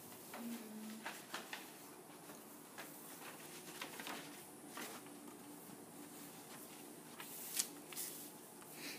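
Paper picture cards being taken from an envelope and laid out and slid on a table: scattered soft rustles and light taps, with one sharper tap about seven and a half seconds in.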